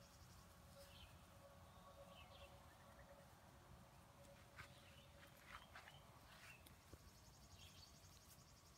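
Near silence: faint outdoor ambience with a few faint short high chirps and a faint insect-like buzz near the start and end.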